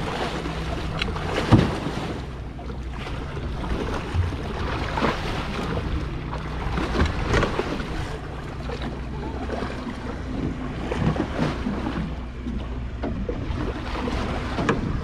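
A hooked cobia thrashing at the surface beside a boat's hull, making irregular splashes, the sharpest about a second and a half in. Under it a boat engine hums steadily, and wind blows on the microphone.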